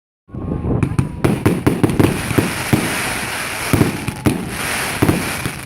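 Large bonfire burning, with rapid sharp pops and crackles over a steady hiss.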